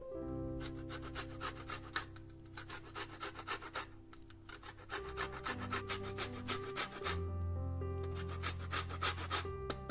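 Lemon rind being grated on a stainless-steel box grater: quick rasping strokes in short runs with brief pauses. Soft background music plays under it.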